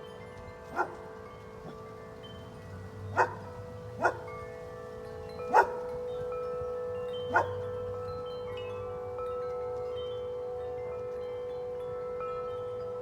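Wind chimes ringing in the wind, many overlapping tones held and fading. Five sharper strikes stand out over the ringing, the loudest just over halfway through.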